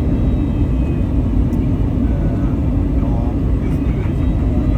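Airliner in flight on approach to landing: the steady, loud drone of its engines and rushing air, with faint voices in the background.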